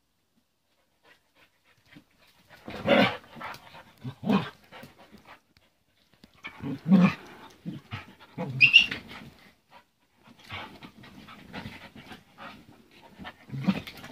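A Yorkshire terrier puppy and a Norwegian elkhound play-fighting: irregular bursts of growling and snarling with panting between, starting about two seconds in.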